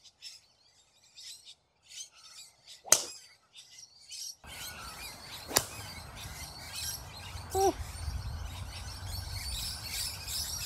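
Birds chirping throughout, with a golf club striking the ball about three seconds in: a single sharp crack, the loudest sound. About five and a half seconds in comes a second club strike over a steadier background with a low rumble.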